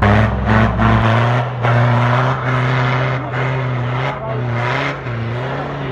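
Off-road 4x4's engine revving hard, its pitch rising and falling in pulses, with bursts of noise from the tyres churning through snow and mud as it climbs.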